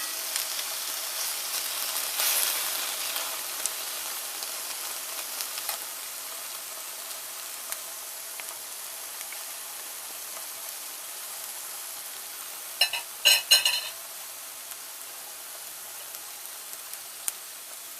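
Thin boneless ribeye steaks, injected with a water solution, sizzling in a hot cast iron frying pan; the sizzle is strongest in the first few seconds and slowly eases off. A brief clatter of sharp clicks comes about 13 seconds in.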